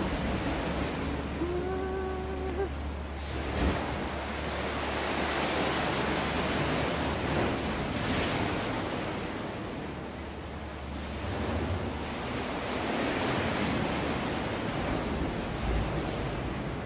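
Sea waves surging into a rock sea cave and washing across its floor, swelling and easing twice, with the hiss carried by the cave. A brief held tone sounds about two seconds in.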